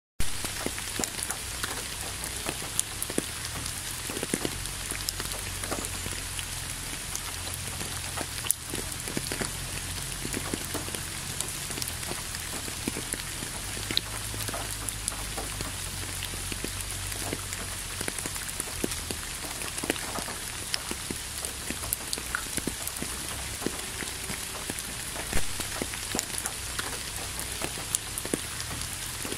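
Steady rain falling, an even hiss with scattered louder drops striking close by over a low rumble.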